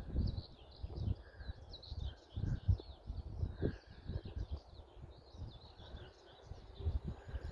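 Wind buffeting the microphone in irregular gusts, with small birds singing continuously in the background.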